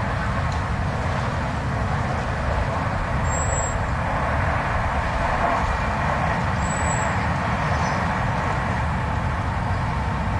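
Steady blizzard wind, a deep rumble under a rushing hiss, with two brief faint high whistles partway through.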